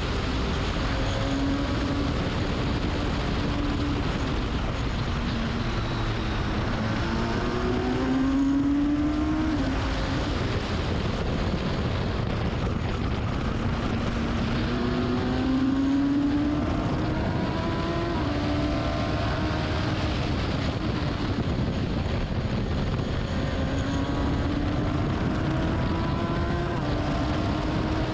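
Racing car engine under hard acceleration. Its note climbs steadily in pitch, then drops sharply at each upshift, several times, over a constant rush of wind and tyre noise.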